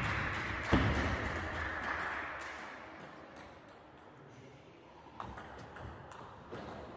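Table tennis ball clicking off bats and the table in a large echoing sports hall. There is a sharp knock just under a second in, then a quieter stretch, and from about five seconds in the clicks of a new rally.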